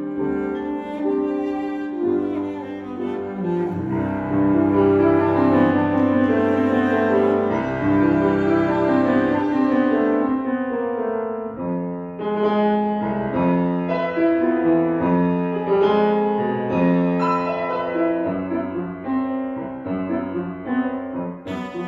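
Cello bowed in a classical piece with grand piano accompaniment, the cello's sustained notes over the piano's chords. The playing is dense for the first half, then moves in more separate, clearly struck notes from a little past the middle.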